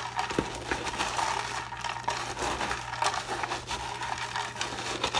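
Hot Cheetos crushed by hand inside a glass blender jar: an irregular run of crunching and crackling.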